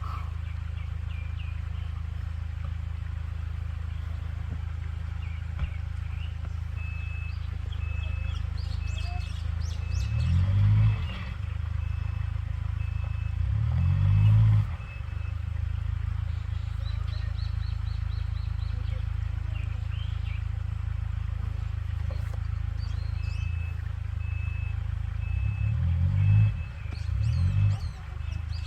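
Off-road vehicle engine running low and steady, revving up and dropping back about ten seconds in, again a few seconds later, and twice near the end. Birds chirp over it, with one high call repeating evenly.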